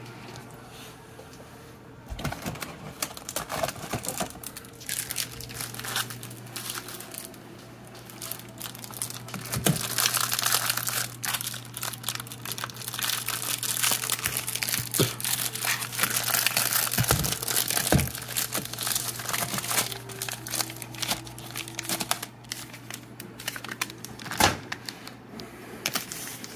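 Crinkly packaging being handled: repeated crinkling and rustling with sharp crackles, starting about two seconds in. A steady low hum runs underneath.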